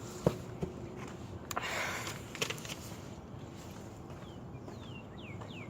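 A few light taps and a brief rustle, then near the end a bird calling a quick run of short, high, downward-slurred notes, about four or five a second.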